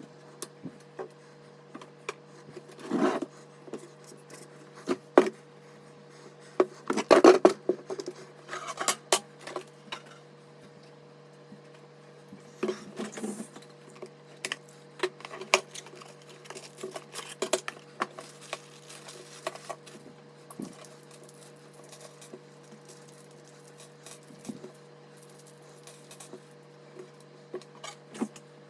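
Hands handling PC components: scattered clicks, taps and rubbing of plastic and metal parts, busiest about seven seconds in, over a steady low hum.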